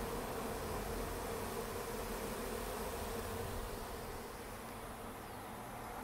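Honeybees buzzing at a crowded hive entrance: a steady hum that drops slightly in level a little past halfway.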